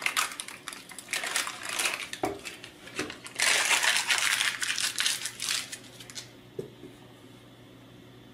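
Protective paper crackling and tearing as it is peeled off a plastic chassis plate, stopping about six seconds in.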